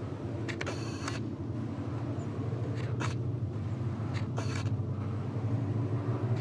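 Train running with a steady low drone, broken by several brief high squeals: about a second in, at three seconds and just past four seconds.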